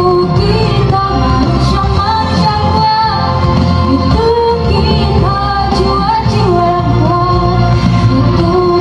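A girl singing a melody into a handheld microphone over instrumental backing music.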